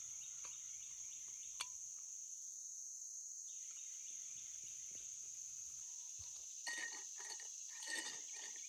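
Steady high-pitched chorus of insects, with a faint click about a second and a half in and a few light clicks and knocks near the end.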